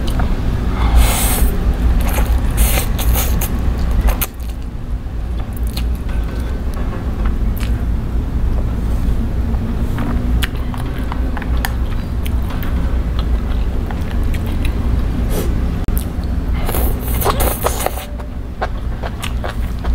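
Close-miked eating of spicy stir-fried instant noodles: a noodle slurp about a second in and another near the end, with wet chewing and mouth clicks in between. A steady low hum runs underneath.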